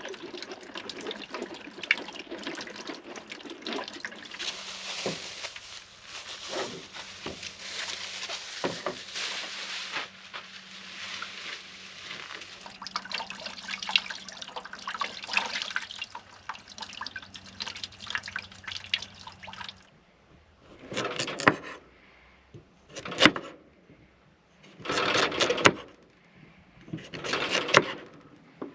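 Liquid splashing and trickling, with small clicks, then about five short rasping strokes roughly two seconds apart.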